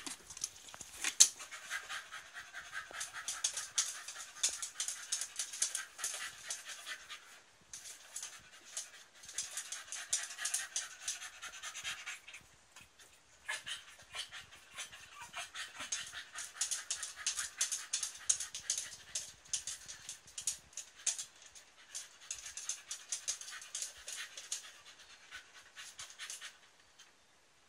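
A dog panting rapidly, with two short pauses, stopping near the end. A single sharp click about a second in.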